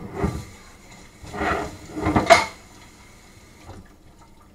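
Kitchen clatter of dishes and utensils being handled and set down: three short bouts of knocks, the loudest a little over two seconds in.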